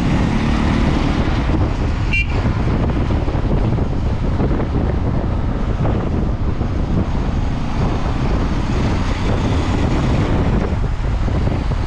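Steady road and wind noise from a moving car, with a short horn toot about two seconds in.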